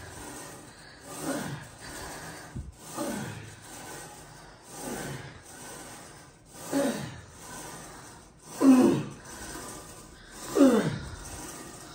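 A woman's effort grunts, one falling, drawn-out exhale about every two seconds, six in all, one for each rep of a Smith-machine Bulgarian split squat. The last two are the loudest.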